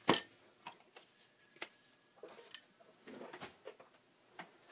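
Scattered light clicks and taps of small items being handled and set down on a worktable, the sharpest click right at the start.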